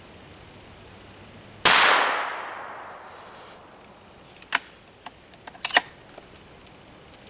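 A single rifle shot from a bolt-action Ruger Ranch Rifle firing a light hand-loaded round (reduced IMR Trail Boss charge, bullet uncrimped), with a sharp crack and a rolling echo fading over about a second and a half. A few sharp metallic clicks follow a few seconds later.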